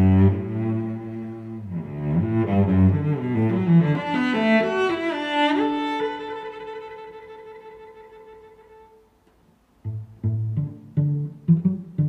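Background instrumental music: a melodic phrase with a rising slide ends on a long held note that fades away, and after a short gap a run of short, detached notes begins.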